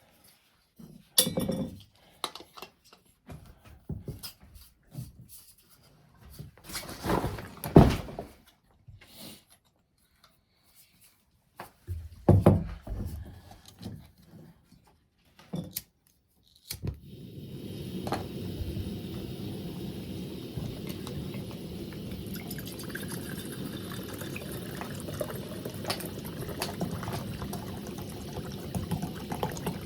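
Knocks and clatter of cooking gear being handled. About two-thirds of the way through, a small backpacking stove starts suddenly and burns with a steady hiss.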